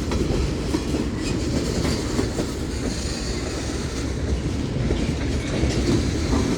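Freight cars of a Union Pacific manifest train rolling past: a steady low rumble of wheels on rail with continual clicking over the rail joints.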